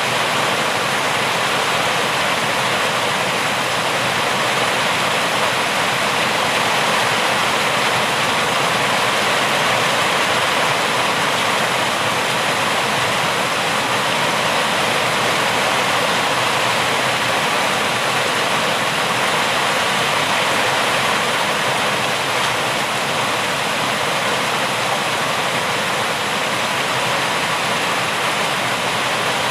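Rain falling steadily: an even, unchanging hiss with no single drops or other sounds standing out.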